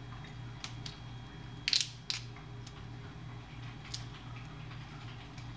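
Shells being peeled off thawed raw shrimp by hand: a few short crackles and snaps of shell, the loudest a quick pair about two seconds in, over a low steady hum.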